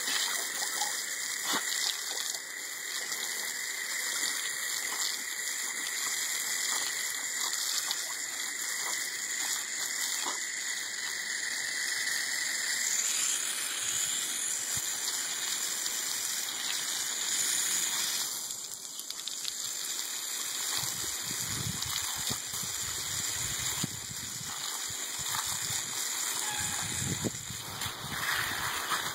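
Garden hose spraying water in a steady rushing hiss, easing off briefly about two-thirds of the way through, with irregular low rumbling bumps in the last third.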